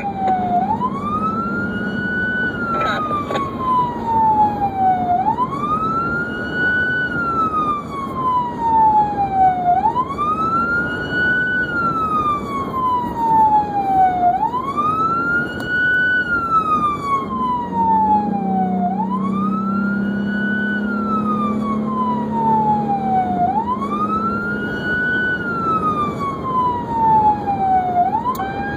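Emergency vehicle siren sounding a wail: the pitch sweeps up quickly and falls slowly, about once every four and a half seconds, over steady engine and road noise.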